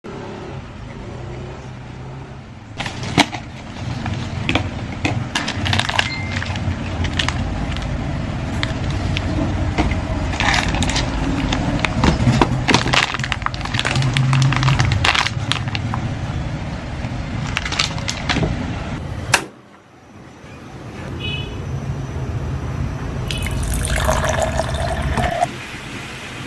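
Plastic packaging of an instant tteokbokki cup crinkling and crackling with many sharp clicks as it is opened and the bag of rice cakes is handled. After a short break about two-thirds of the way in, a steady rush of water swells for several seconds and stops suddenly.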